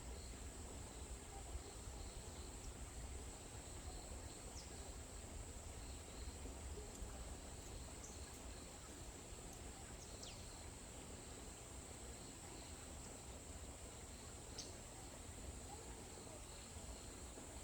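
Forest ambience: a steady high-pitched insect trill, with a few brief high bird calls scattered through and a faint low rumble underneath.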